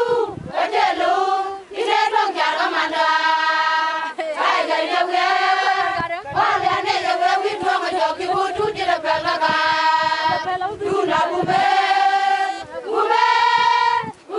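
A large group of women singing together in unison without instruments, in phrases that break off briefly every second or few seconds.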